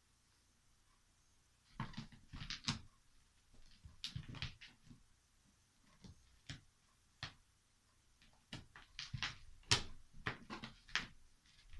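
A cat scrabbling at and bumping against a box, making irregular knocks and rustles in clusters from about two seconds in.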